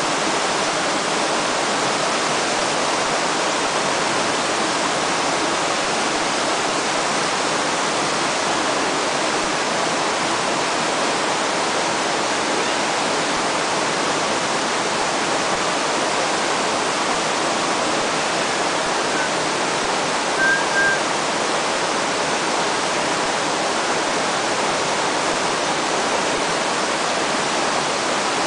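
Fast-flowing river current rushing steadily. Two short high chirps come about two-thirds of the way through.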